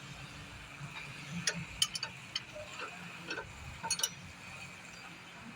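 A few light, scattered clicks and taps of metal parts being worked by hand: the clutch slave cylinder being fed into place in the engine bay.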